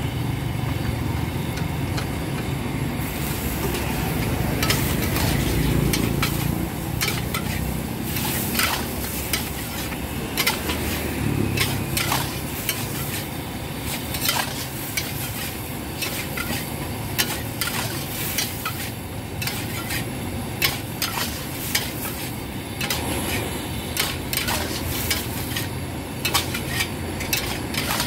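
Yellow noodles with greens sizzling as they are stir-fried in a large steel wok, a metal spatula scraping and knocking against the wok in quick, uneven strokes that grow frequent about three seconds in. A low steady rumble runs underneath.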